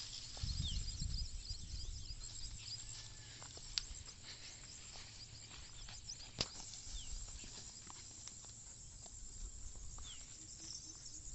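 Dogs moving through dry grass and stalks: light rustling and scattered small clicks, with two sharper ticks, over a low rumble early on. A few faint high chirps are heard.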